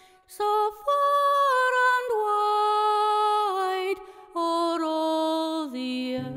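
A solo voice singing a slow melody unaccompanied, in long held notes that step down in pitch, with short pauses between phrases. Low plucked notes come in near the end.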